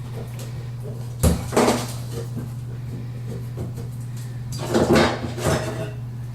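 Knocks and clatter of plastic drain parts being handled and fitted under a sink: a sharp knock about a second in, and a busier patch of knocking and rustling near five seconds, over a steady low hum.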